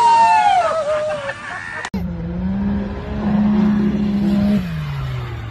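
An off-road 4x4 revving hard as its tyres spin in mud, with people shouting over it. About two seconds in, a sudden cut to a dune buggy's engine running at a steady high pitch, which eases off near the end.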